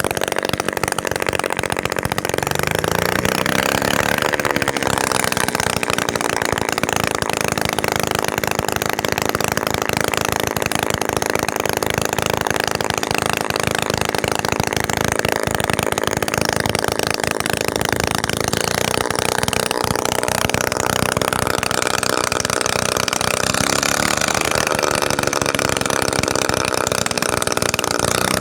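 Small homemade two-stroke engine converted from a refrigerator compressor, running continuously with a buzzy, chainsaw-like note. It picks up speed a few seconds in and briefly swells in pitch again near the end.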